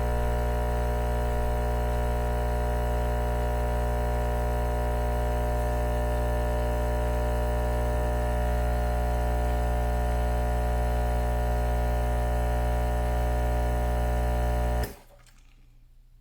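Lavazza BLUE Classy Mini LB 300 espresso machine's pump buzzing steadily while brewing a shot, then cutting off suddenly near the end.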